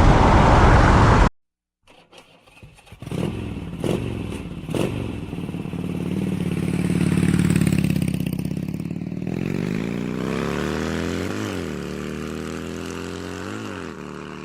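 VOGE 300DS motorcycle engine: a few clicks, then the engine running steadily, with two quick throttle blips near the end, each a short rise and fall in pitch. A loud noise cuts off sharply about a second in, before the engine sounds begin.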